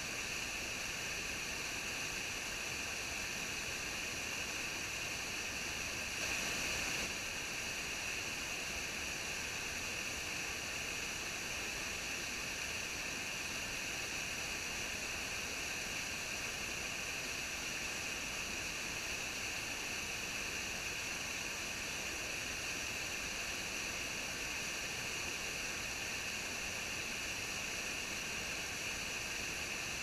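Waterfall rushing steadily, an even hiss with no breaks, briefly a little louder about six seconds in.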